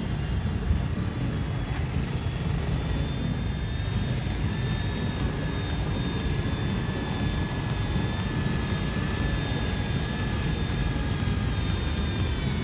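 Electric motors and rotors of a C186 Pro toy RC helicopter hovering and flying low, a steady high whine with only slight changes in pitch. Wind buffets the microphone throughout as a low rumble.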